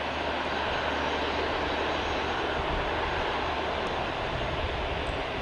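Jet engines of a Boeing 737-300 freighter running at low taxi power, a steady, unbroken rushing noise.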